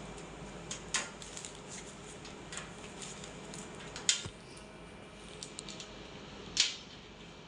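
Handling of small items: three sharp clicks, about a second in, about four seconds in and near the end, with lighter ticks and rustles between.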